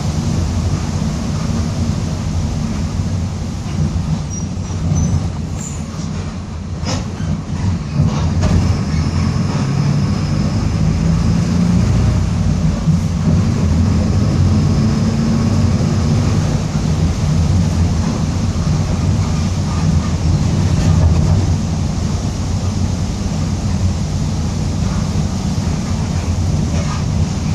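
Mercedes-Benz OF-1722M city bus under way: diesel engine running with a steady low rumble and a growling differential. A few knocks and rattles sound about seven seconds in.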